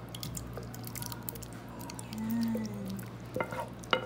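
Thick, saucy cauliflower with cream of mushroom and corn being poured and scraped from a pan into a ceramic dish: wet plops and drips, with sharper clicks of the pan or spoon against the dish near the end. A brief low tone sounds a little past two seconds in.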